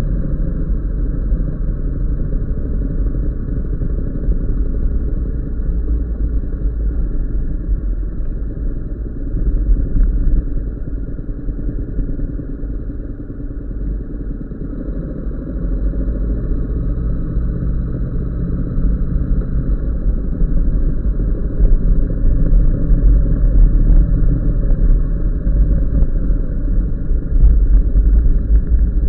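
Steady, muffled low rumble of an onboard vehicle's engine and road noise during a slow ride through town streets. It grows louder over the last eight seconds or so, when the road turns to cobblestones.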